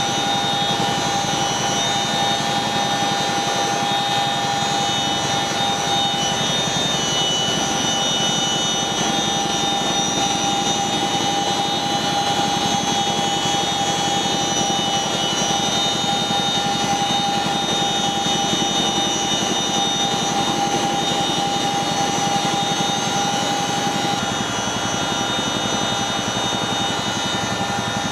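CH-47 Chinook tandem-rotor helicopter heard from inside the cabin while hovering with a sling load on the cargo hook. Its engines and rotors make a steady, dense noise with a constant high whine over it.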